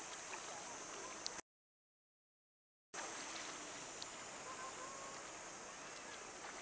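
Faint, steady hiss of shoreline ambience at shallow sea water, cut off to dead silence for about a second and a half shortly after the start, then resuming unchanged.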